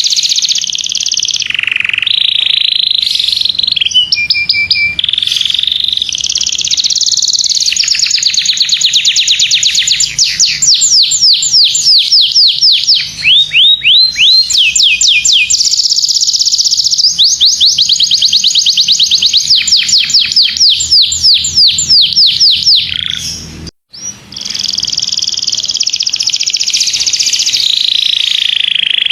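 Domestic canary singing a long, continuous high-pitched song of fast rolling trills, each a rapid run of repeated notes, with one short break about 24 seconds in.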